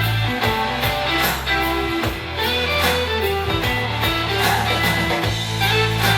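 Music played back through a portable Bluetooth speaker in a speaker audio test: a guitar-led track over a steady bass note, with a regular beat about twice a second.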